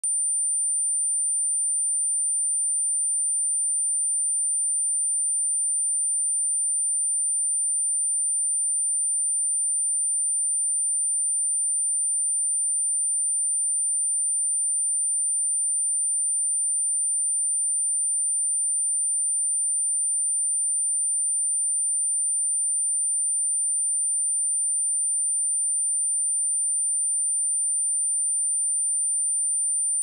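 A pure 9152 Hz sine tone, a steady high-pitched whistle held at constant pitch and level, played as a speaker test and speaker-cleaning tone.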